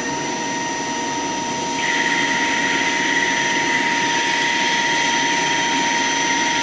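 CNC lathe spindle running at full speed with a steady high whine. About two seconds in the cutting insert bites into the spinning metal bar and a louder hissing, scraping cut with a tone near 2 kHz joins, as long unbroken chips stream off.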